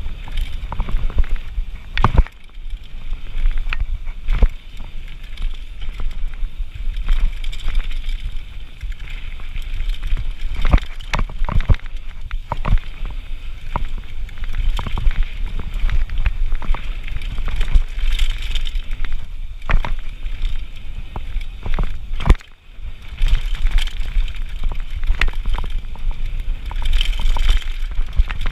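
Downhill mountain bike descending a dirt and gravel trail: tyres rolling and skidding over the dirt under a continuous low rumble, with frequent sharp knocks and clatter from the bike as it hits bumps and rocks.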